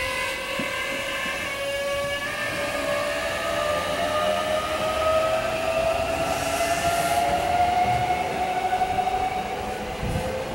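Hankyu 8300 series electric train pulling away from the station, its VVVF inverter and traction motors whining and rising steadily in pitch as it accelerates, over the rumble of the wheels on the track.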